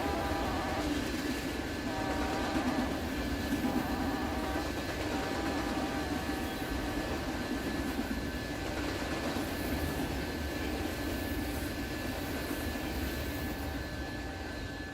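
Freight grain train rolling past with a steady rumble of wheels and cars. A few short, high ringing tones come at about two-second intervals in the first five seconds.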